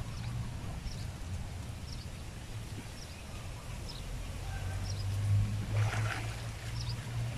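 Water sloshing and splashing as men wade through a pond, with a louder splash about six seconds in, over a low steady hum.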